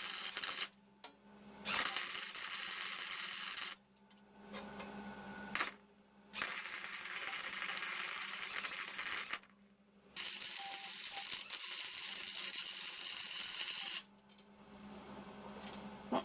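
Electric welding arc crackling and hissing in bursts of a few seconds, four times, with short pauses between beads, over a steady low hum.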